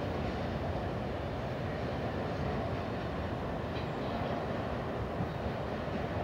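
Westbound BNSF domestic intermodal freight train rolling away, a steady rumble of its cars' wheels on the rails as the tail end recedes. A faint, brief high squeal about four seconds in.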